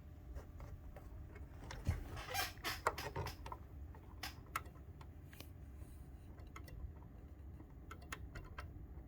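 Scattered light clicks and scrapes of a small metal clock movement being handled, busiest between about two and three and a half seconds in, with no regular ticking.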